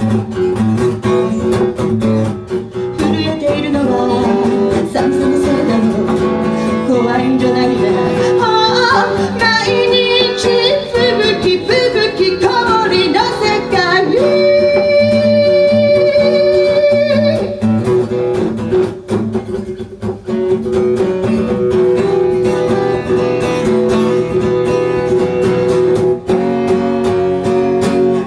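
Live acoustic duo: a woman singing over a strummed acoustic guitar. About halfway through, a steady high note is held for about three seconds before the singing and strumming carry on.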